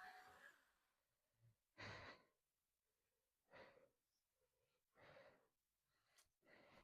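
A person breathing out heavily, four short breaths about a second and a half apart, faint against near silence.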